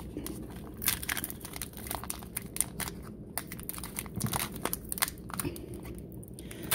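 Foil wrapper of a Pokémon Hidden Fates booster pack crinkling and crackling in irregular sharp bursts as fingers pinch and pull at its top edge to tear it open. The wrapper is hard to tear.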